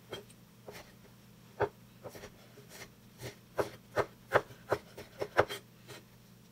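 Kitchen knife chopping small red chili peppers on a wooden cutting board: irregular sharp taps of the blade through the pepper onto the board, sparse at first and coming faster, about two a second, in the second half.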